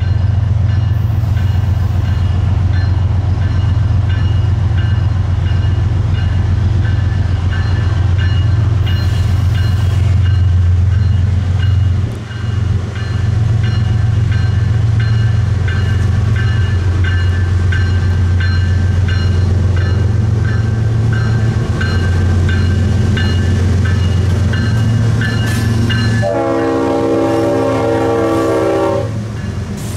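Diesel-electric locomotive (GE ES44AC-H) running loud and low as it approaches and passes at close range, the train rolling behind it. Near the end, the Leslie RS5T five-chime air horn sounds one full chord for about three seconds.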